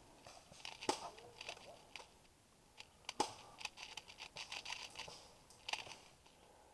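Faint, irregular clicks and rustling of hands reloading airsoft ammunition by hand.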